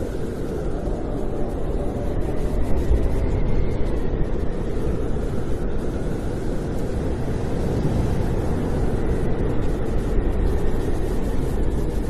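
Snowstorm wind blowing steadily with a deep rumble, and a faint whistle that rises and falls now and then above it.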